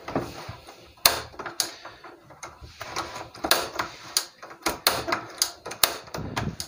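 Automatic gas stove's igniter knob clicking repeatedly at an uneven pace. This is the igniter of the largest burner, which is not working.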